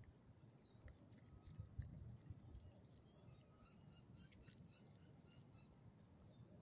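Near silence with faint scattered clicks of a small dog licking and chewing bits of chicken from a hand.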